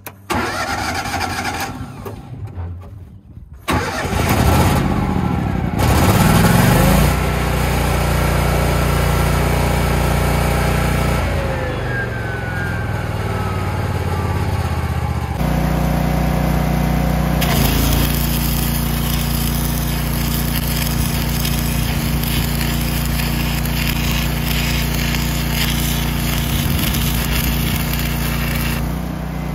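Miller Trailblazer 302 engine-driven welder/generator being started: a short burst of cranking, then the engine catches about four seconds in and revs up with a rising pitch. It then runs steadily, shifting to a different steady note about halfway through.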